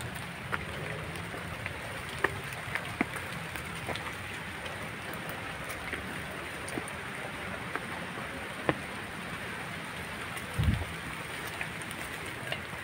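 Hikers' footsteps and brushing through undergrowth on a steep, rocky forest trail: scattered snaps and clicks of twigs, leaves and stones over a steady hiss. There is a low thump about ten and a half seconds in.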